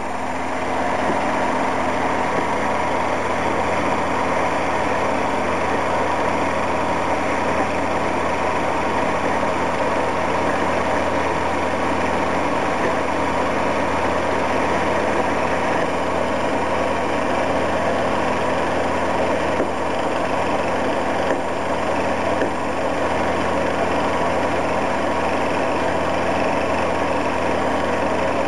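Bell & Howell 16mm movie projector running steadily, a continuous mechanical whir with a low hum as film feeds through between sound scenes.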